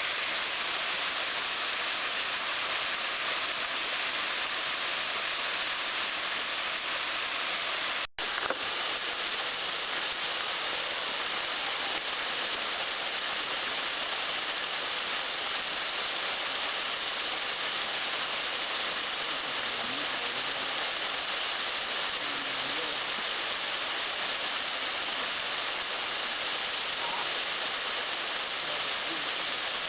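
A small waterfall, about 10 feet tall and 20 to 25 feet wide, pouring into a deep plunge pool: a steady rush of falling water. It cuts out for an instant about eight seconds in.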